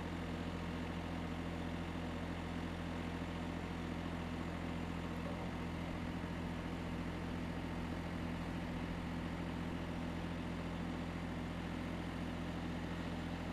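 Small petrol engine of a Woodland Mills portable bandsaw mill idling steadily with no log being cut, a constant low hum.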